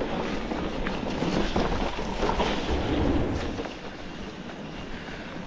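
Mountain bike riding fast down a wet, rocky gravel trail: tyres rolling and crunching over grit, the bike rattling over bumps, with wind on the microphone. It gets quieter about two thirds of the way through.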